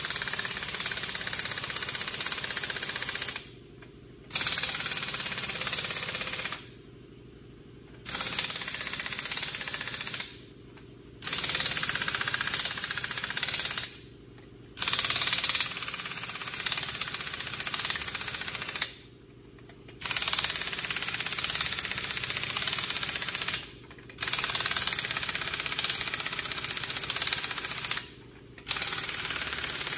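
Pneumatic impact wrench hammering on the lug nuts of a heavy truck's front wheel, in about eight bursts of a few seconds each with short pauses between, one nut after another.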